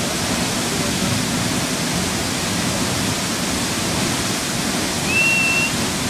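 Steady rushing roar of a high waterfall pouring down onto rock. About five seconds in, a brief high whistle rises slightly, then holds.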